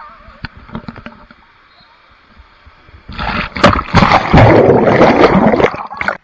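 A few light knocks of a camera bumping along a waterslide, then about three seconds in a sudden loud rush of water splashing over the camera's microphone, which cuts off abruptly near the end.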